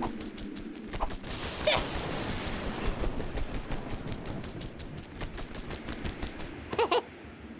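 Cartoon wing-flapping sound effect for a small hovering chick: a fast, continuous rattle of flutters. A few short squeaky rising chirps from the chick come about a second in, again a moment later, and near the end.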